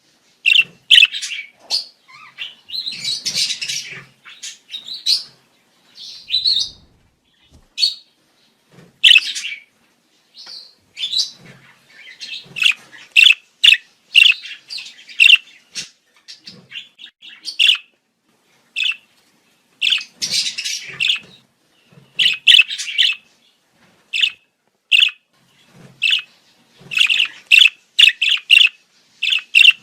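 Budgerigars chirping and warbling: quick high chirps in irregular bursts of chatter with short pauses between them.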